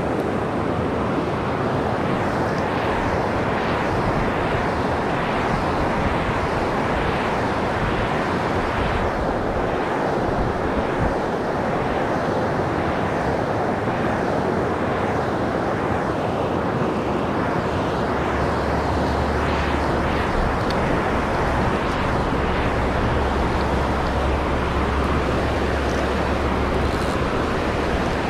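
Fast river riffle rushing close by, a steady even hiss of moving water. A low rumble joins about two-thirds of the way in.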